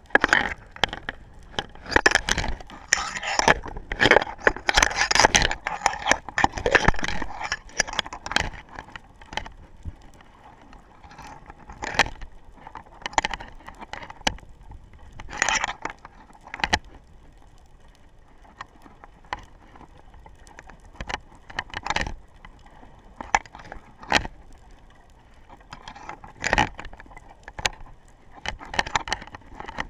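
Underwater sound through a waterproof action camera's sealed microphone: irregular sharp clicks and crackles, dense for the first several seconds, then scattered single clicks over a faint hiss.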